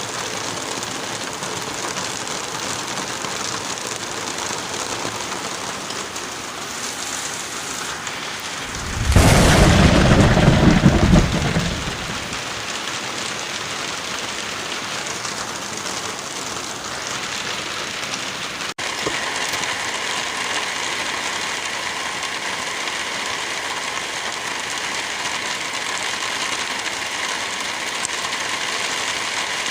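Steady rain and wind in a forest. About nine seconds in, a loud low rumble swells up and dies away over about three seconds, and later the sound breaks off for an instant and resumes with a faint steady hum in the background.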